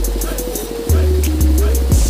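Background electronic hip-hop-style music with a steady beat: deep bass hits that slide down in pitch about a second in and again near the end, a melody stepping down and back up, and quick hi-hat ticks.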